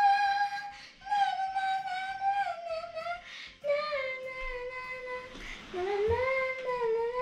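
A child singing long, held high notes in three phrases, with short breaks between them and the pitch sliding between notes.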